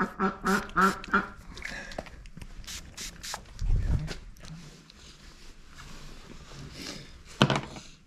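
White domestic duck quacking: four quick quacks in a row at the start and another loud call near the end, with a low thump about four seconds in.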